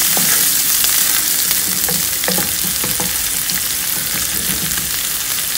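Chopped garlic, ginger and cumin seeds sizzling in hot oil in a non-stick wok, being fried to a light golden colour, with a wooden spatula stirring and scraping now and then across the pan.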